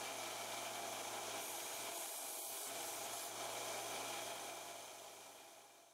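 Harbor Freight Central Machinery 1-inch belt sander running with a steady hum while a mild steel disc is held against the abrasive belt, rasping off a burr from its edge. The sound fades out near the end.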